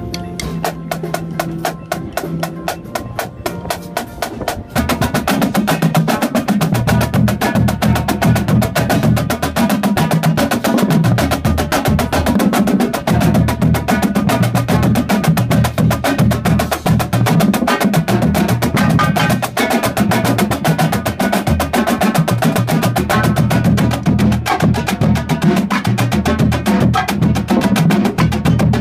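Marching drumline playing a fast rudimental piece on snare drums, tenor drums and bass drums. The first few seconds are quieter, dense fast snare strokes; about five seconds in the full line comes in louder, with the low pitched notes of the bass drums under the snares.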